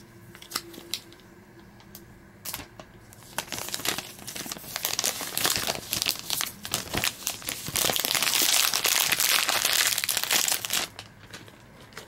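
Clear plastic shrink-wrap being peeled off an iPhone 12 box and crumpled. A few light clicks and rustles come first, then dense crinkling from about four seconds in, loudest near the end, stopping about a second before the end.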